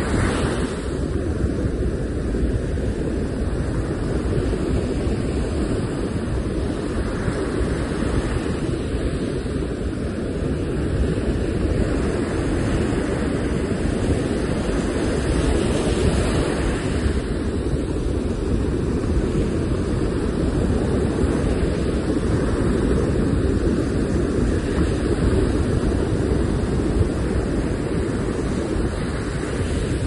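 Surf breaking and washing up a sandy beach, the hiss of the wash swelling every several seconds and strongest about halfway through, over a steady low rumble of wind on the microphone.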